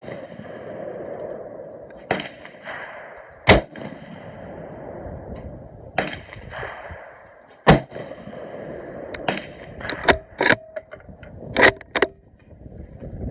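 Gunshots at a shooting range: about nine shots at irregular intervals. Two of them, about a third of the way in and past the middle, are much louder than the rest.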